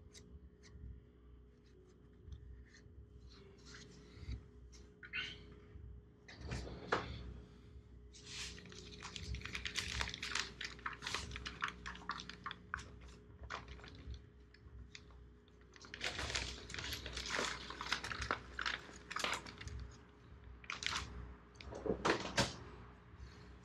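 Parts and tools being handled on a workbench during engine reassembly: irregular clicks, clinks and rattles, coming thick in two longer spells of clatter and a short one near the end, over a faint steady hum.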